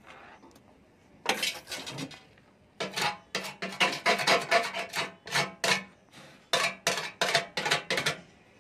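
A hand file rasping back and forth over a freshly welded steel patch on a Splendor motorcycle's fuel tank, smoothing down the weld. A couple of strokes come about a second in, then a steady run of about two strokes a second.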